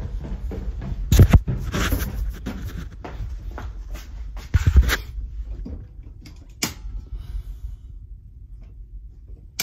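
Irregular footsteps and thumps going down a flight of stairs, with the handheld phone rubbing against the microphone. The loudest thumps come about a second in and near five seconds in, with a sharp click a little before seven seconds.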